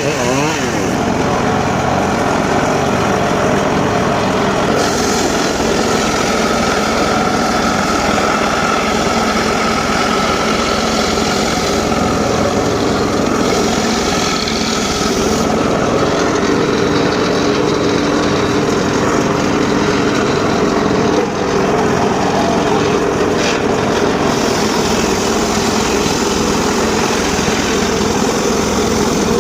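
Homemade circular saw bench running steadily while sawing teak wood, its sound shifting a little at times as the cut goes on.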